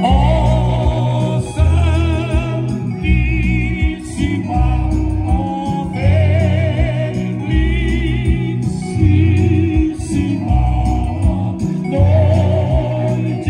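Two men singing a gospel song with vibrato into microphones, accompanied by a Yamaha electronic keyboard playing chords over a heavy bass line.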